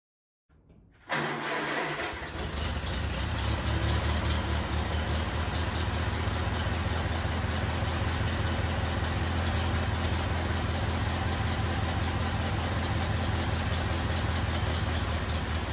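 An engine starts up about a second in and keeps running steadily.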